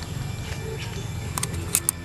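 Low, droning background music with a few short held tones, and several sharp clicks near the end.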